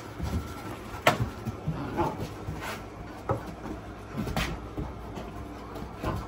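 Dutch Shepherd puppy biting and tugging a bite pillow on a wooden floor: scuffling, with about five sharp knocks spread through the first four and a half seconds.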